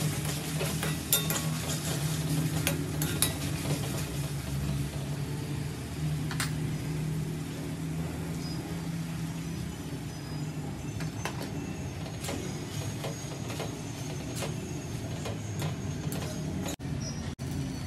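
Kitchen work sounds: scattered clinks of metal utensils against pots and dishes over a steady low hum, with the clinks coming thickest in the first few seconds.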